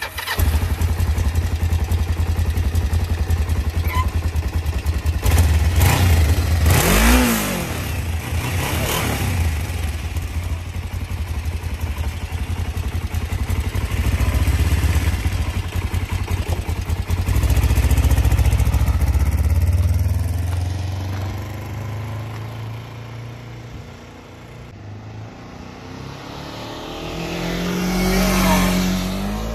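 2006 Kawasaki Ninja 500's parallel-twin engine running with the rider aboard, revved once about seven seconds in. The bike then pulls away and fades down the street, and comes back to pass close by near the end.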